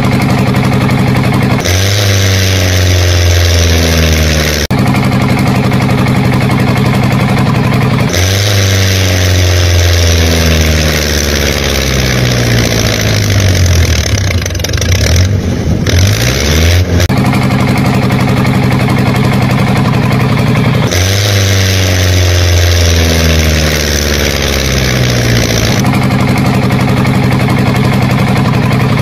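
Engine sound running and revving, in spliced pieces that change abruptly every few seconds. Steady running alternates with revs, and in the middle the pitch sinks and then climbs back up.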